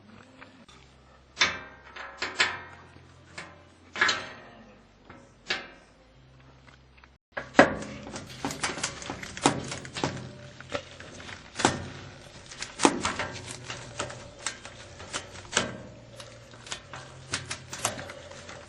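Handling and work on an old Whirlpool washing machine's metal top: a few separate knocks and clatters, then from about seven seconds a busy, irregular run of clicks and scrapes.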